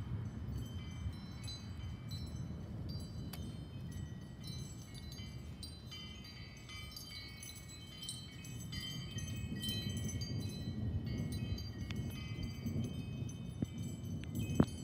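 Wind chimes ringing irregularly, many high metallic tones struck at random and overlapping, over a steady low rumble that swells in the second half.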